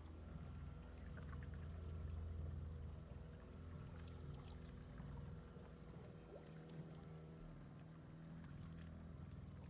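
Longboat's motor running at low speed, a quiet steady low hum that eases off a little about three seconds in.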